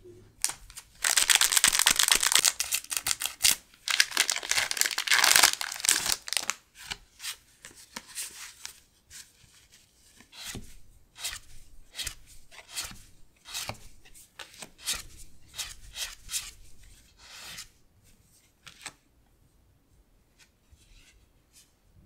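Foil wrapper of a Pokémon Fusion Strike booster pack crinkling and tearing open, loud for about five seconds. After that come separate soft swishes and flicks, one after another, as the cards are slid through the hands one by one.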